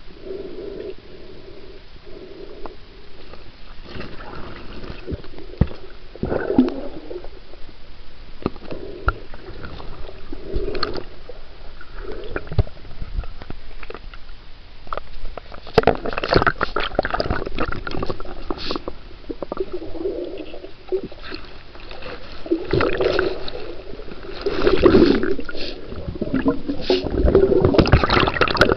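Water sloshing, gurgling and splashing around a camera moving between underwater and the surface of a pool, with irregular knocks and bursts of splashing that grow busier and louder from about halfway through.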